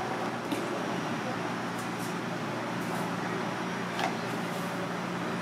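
Steady kitchen background hum with a faint click about half a second in and a light knock about four seconds in, as a plastic container of salt is handled over a steel bowl.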